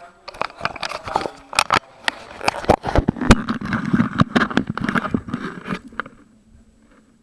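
Irregular clicks, knocks and scraping that die away about six seconds in.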